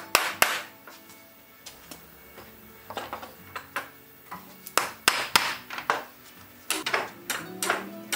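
Hammer blows knocking a new wooden brake block into place on a wagon's brake beam: irregular strikes, two near the start, scattered ones in the middle and a quick run of several near the end. Background music plays underneath.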